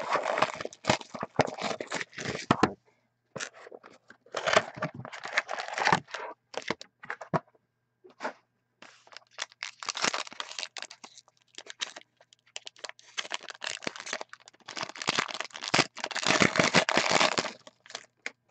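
Foil wrapper of a hockey trading-card pack being torn open by hand: crinkling and ripping in several bursts with short pauses between them.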